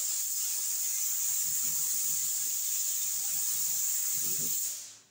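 Gravity-feed air spray gun with a 1.7 nozzle hissing steadily as it atomises filler primer onto a car hood, cutting off near the end when the trigger is released.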